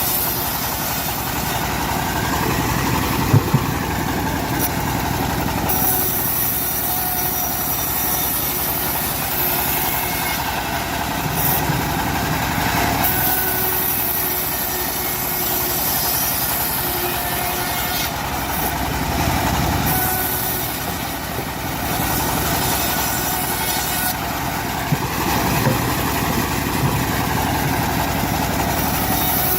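Homemade bandsaw sawmill running steadily while sawing teak logs, with a high hiss that comes and goes in stretches. A few sharp clicks are heard about three seconds in and again near the end.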